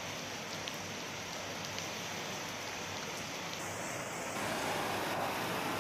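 Floodwater rushing through a street, a steady wash of running water that grows louder about four and a half seconds in.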